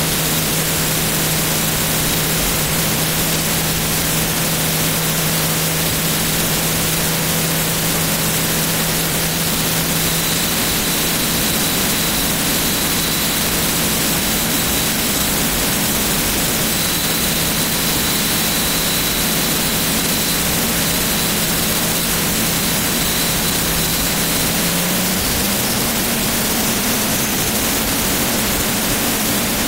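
Jet truck's twin jet engines running steadily with the truck standing still: a loud, even rush of noise over a low steady hum. The hum steps up in pitch about 25 seconds in.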